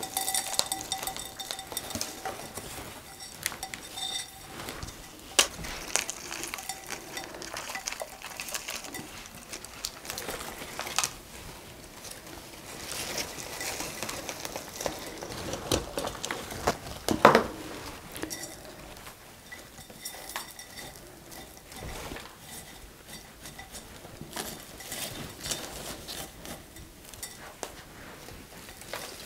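Chunky bark-and-perlite potting mix being scooped with a small plastic nursery pot and tipped into a planter around a plant's roots: rustling, scraping and light clinking of the bark pieces and the pots, with a louder scrape a little past halfway.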